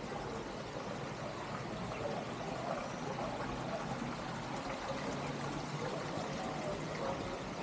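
Steady rush and splash of running water from the water garden's fountains and spouts.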